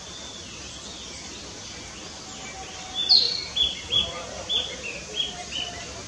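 Male narcissus flycatcher singing: about halfway through comes a phrase of six or seven clear whistled notes, the first the loudest, with fainter notes before it over a steady background hiss.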